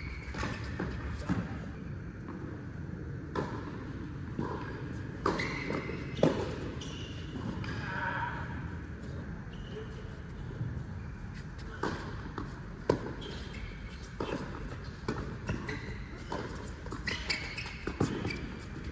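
Tennis ball being struck by rackets and bouncing on the court: a string of sharp pops, at times a second or two apart, with pauses between.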